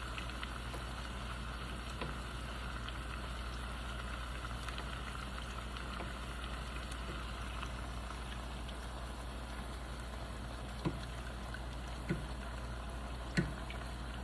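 A puffy taco shell frying in a pan of hot oil: a steady sizzle, with a few light knocks near the end.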